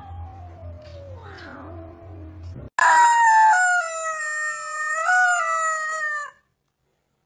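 A squeeze-type rubber chicken toy lets out a long, loud squawk that starts suddenly about three seconds in and lasts about three and a half seconds, its pitch dipping and rising a little before it cuts off. Before it there is only a faint low hum.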